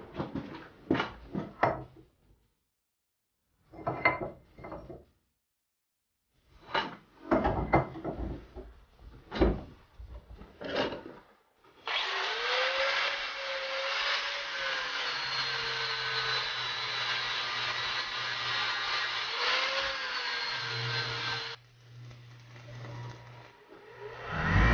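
Clusters of sharp knocks and bangs, then a power tool starts abruptly and runs steadily for about ten seconds, its motor pitch wavering under load before it stops.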